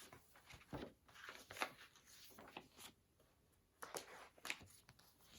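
Near silence with a few faint rustles and light taps from a picture book's paper pages being handled.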